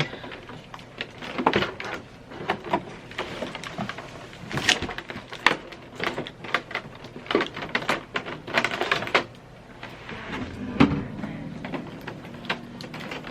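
Cutting packing tape around a cardboard box: a blade scraping and slicing in short irregular strokes, with taps and rustling as the box is handled.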